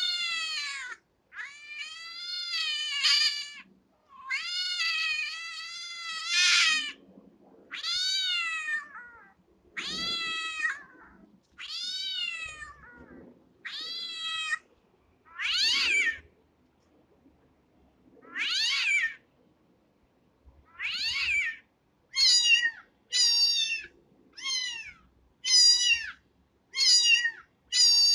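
Kitten meowing over and over, high-pitched calls that rise and fall in pitch. The first calls are longer, up to about two seconds. From about two-thirds of the way in they turn into short meows about one a second.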